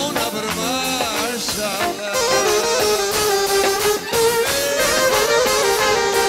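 Live Albanian folk-pop band music, with a saxophone playing a winding, ornamented lead melody alongside a violin. The band sound fills out about two seconds in.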